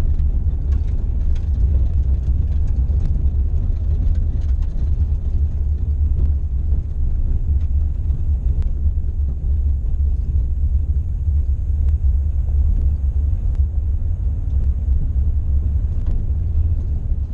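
Steady low rumble of a vehicle driving on a gravel road, heard from inside the cab, with faint scattered ticks.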